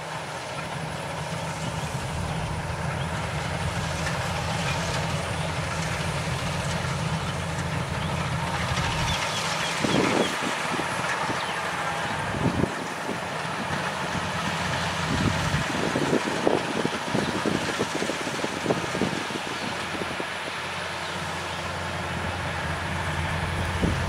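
Rice combine harvester's engine running steadily with a low hum, with short knocks and rattles now and then from about ten seconds in.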